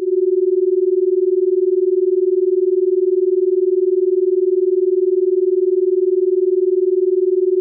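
A steady electronic sine tone: one held mid-low note with no breaks, its loudness fluttering quickly and evenly. It is the tone layer of a subliminal audio track.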